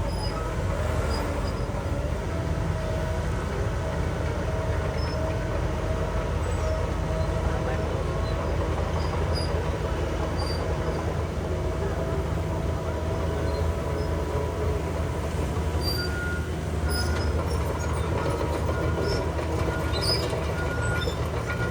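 Diesel engines of heavy earthmoving machinery running steadily with a deep rumble and a held whining tone. A regular series of short high beeps comes in during the last third.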